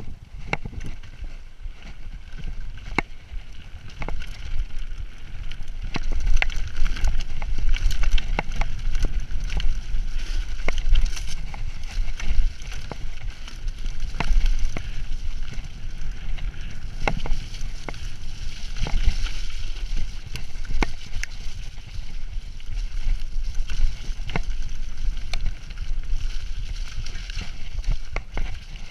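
Mountain bike ridden along a muddy woodland trail, heard from a camera on the rider: a steady low rumble of wind on the microphone and tyres on mud, broken by frequent sharp clicks and rattles from the bike over bumps.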